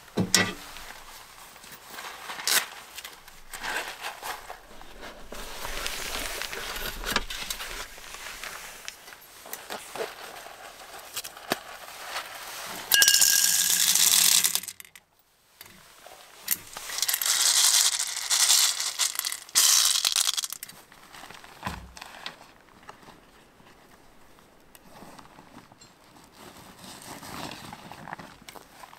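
Rustling of a fabric pouch and small clinks as camp gear is unpacked on a metal tailgate table. About 13 seconds in comes a loud pour of small dry granules into a small cook pot, and a second long rustling rush follows from about 17 to 20 seconds.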